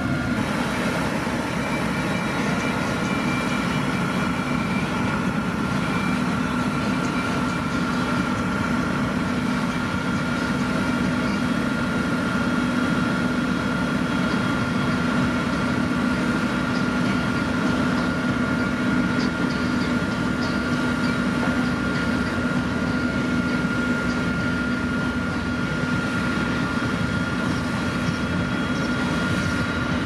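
Motor grader's diesel engine running steadily, with a constant whine held over the engine noise.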